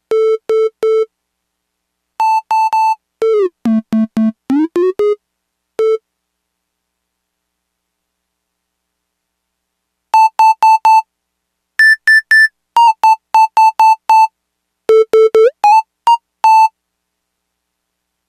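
Elektron Octatrack sampler playing a short bright sampled tone in quick groups of notes, pitch-shifted across several octaves, with some notes sliding down and back up in pitch. A silent gap of about four seconds near the middle.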